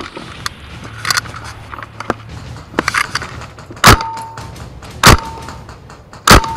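Three loud, sharp hits about a second apart in the second half, each followed by a short steady ringing tone, after a stretch of quieter scattered clicks and low rumble.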